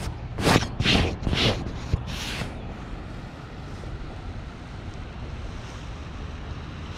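Jacket fabric brushing against a body-worn camera and microphone, four quick rustles in the first two and a half seconds, then a steady low rush of wind on the microphone and flowing river water.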